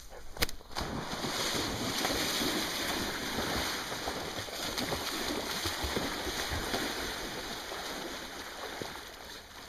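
River water rushing and splashing as a dog swims through it, with wind noise on the microphone. A single sharp knock about half a second in.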